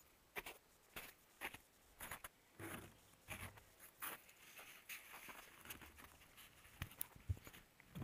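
An action camera being handled by a gloved hand, its housing picking up irregular scratchy rustles and sharp clicks as it is moved and repositioned. The two loudest clicks come near the end.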